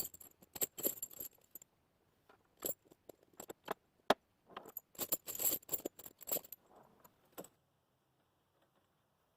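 Steel tire chains being handled, the links clinking and jangling in a string of short rattles that stop about seven and a half seconds in.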